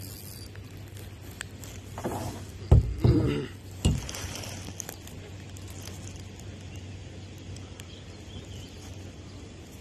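Handling noise as a small bluegill is lifted in on the line and taken in hand: a few sharp knocks and rustles about two to four seconds in, over a low steady hum.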